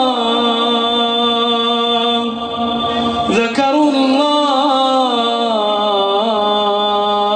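A man reciting the Quran in melodic tajweed style, drawing out long, slowly wavering notes, with a short break about three seconds in.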